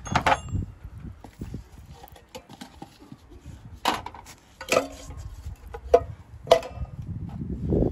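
Metal tools and a saucepan drain pan being set down on paving: scattered clinks and knocks, a few of them ringing briefly, over shuffling footsteps and scuffing that swells near the end.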